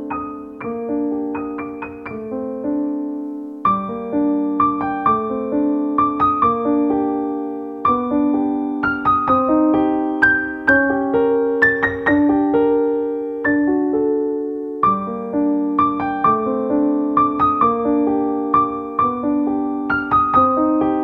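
Background piano music: a steady melody of struck notes, each ringing and fading.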